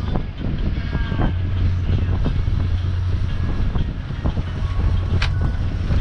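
A sailboat's inboard diesel engine running at a steady low hum while motoring, with wind buffeting the microphone, scattered small knocks and one sharp click about five seconds in.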